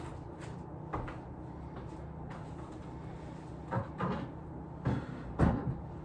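A handful of short knocks and thumps as household things are handled and set down on furniture and a wooden floor, the loudest near the end.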